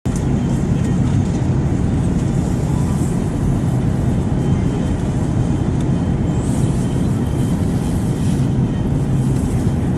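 Airplane noise: a steady low rumble with a faint hum underneath.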